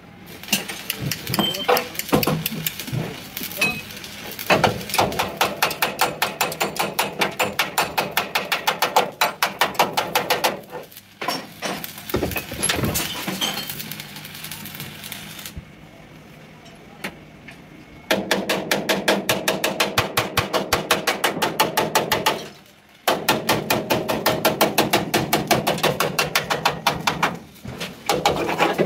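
Rapid, steady hammering on sheet steel, several blows a second, in runs of a few seconds broken by short pauses.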